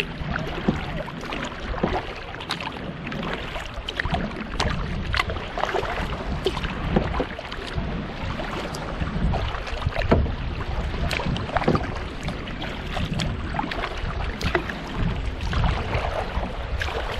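Double-bladed kayak paddle dipping and splashing in lake water beside a solo canoe, with water lapping on the hull: a steady run of irregular splashes and drips.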